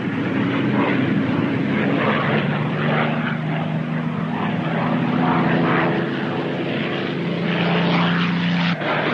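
Steady drone of a propeller aircraft's engines.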